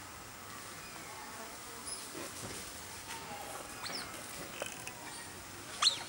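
A few short, high-pitched squeaks from young ursine colobus monkeys at play; the last, just before the end, is much the loudest.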